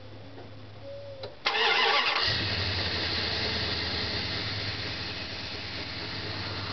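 A 2001 Dodge Ram's 5.2-litre (318) V8 cold-starting: the starter cranks briefly about a second and a half in, the engine catches within a second and settles into a steady idle.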